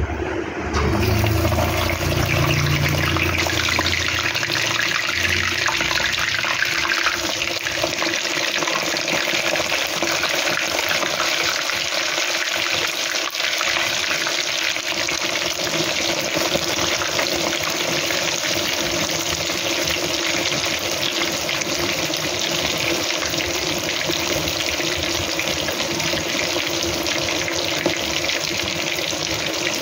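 Chinese cabbage rolls stuffed with ground chicken frying in hot oil in a wok: a steady, loud sizzle that starts suddenly about a second in, as the rolls go into the oil.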